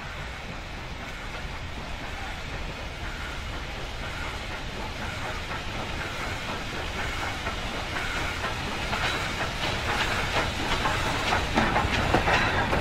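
Steam locomotive hauling a train of wagons, growing steadily louder as it approaches, with clattering knocks building up over the last few seconds.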